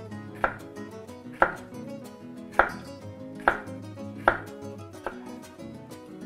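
Chef's knife slicing a yellow sweet pepper into thin strips on a wooden cutting board: about six sharp knocks of the blade on the board, roughly one a second, over soft background music.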